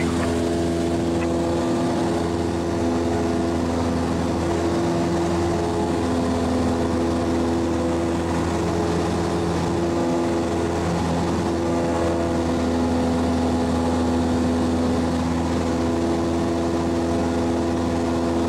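Cessna light aircraft's piston engine and propeller droning steadily in flight, heard from inside the cabin.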